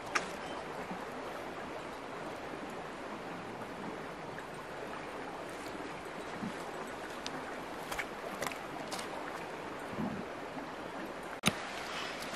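Steady rush of flowing river water, with a few light clicks and knocks over it and one sharper knock near the end.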